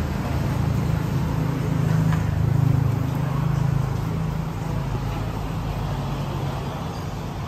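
Low steady rumble of road traffic, swelling as a vehicle passes about two to three seconds in, then easing off.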